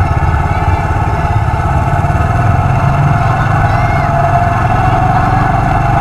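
Vehicle engine running steadily with road noise while on the move, a constant low rumble with no horn sounding.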